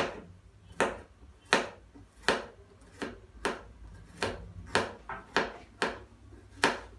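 Knife chopping garlic cloves on a cutting board: about eleven steady, evenly spaced chops, roughly one and a half a second.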